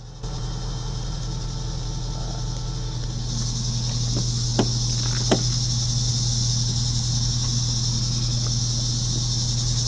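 Pickup truck engine idling steadily with a low hum, running on HHO gas alone with the fuel shut off, as the owners claim. A high steady hiss grows louder about three seconds in, and two sharp clicks come near the middle.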